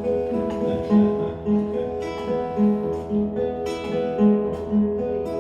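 Acoustic guitar playing a slow instrumental intro: held chords with a low bass note plucked about twice a second.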